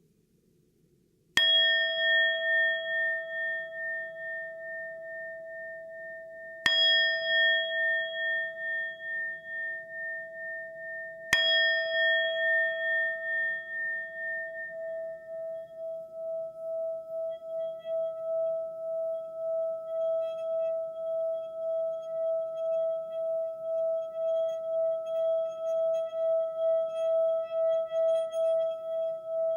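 A singing bowl struck three times, about five seconds apart, each strike ringing on and slowly fading. From about halfway through it rings on steadily at an even level with a slow pulsing wobble.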